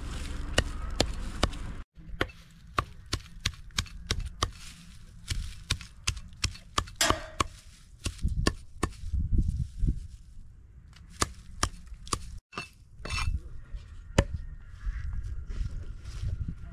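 Cleaver chopping dry straw on a wooden chopping stump: quick runs of sharp chops, the blade knocking into the wood, with short pauses between runs.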